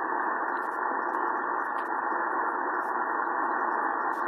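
Steady hiss from an Elecraft K3S transceiver's receiver audio tuned to the 80 meter band, carrying power line noise, with its DSP noise blanker switched on. The hiss is cut off sharply at the top by the receiver's narrow audio passband.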